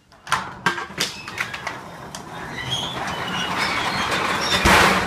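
Sectional panel garage door, released from its opener, running down its tracks on its own: sharp clacks at first, then a rattling rumble that builds to a loud crash near the end as it hits the floor. The unserviced door is out of balance and falls freely instead of holding in the opening.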